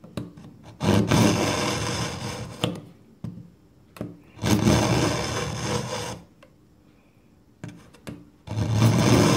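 A kitchen knife blade drawn three times through an AnySharp pull-through sharpener's tungsten carbide notch, each stroke a loud grating rasp of about two seconds as the edge is ground from heel towards tip, with small clicks between strokes as the blade is set back in.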